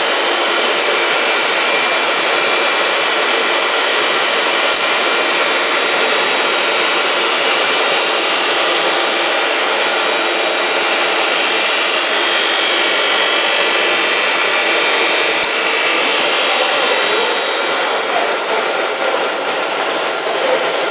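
Bavelloni CR 1111 straight-line glass edging machine running: a steady, even rush from its spindle motors, with two faint clicks.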